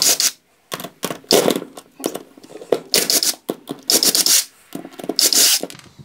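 Cordless drill-driver backing out the screws of a reciprocating saw's bearing housing cap in several short bursts, with metal scraping as the screws turn.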